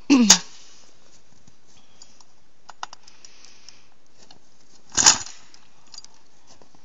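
Gas ice auger being pull-started and not catching. A recoil-starter pull right at the start spins the engine briefly, its pitch falling away, and a second short pull comes about five seconds in. A few faint clicks fall between the pulls, and the engine never runs.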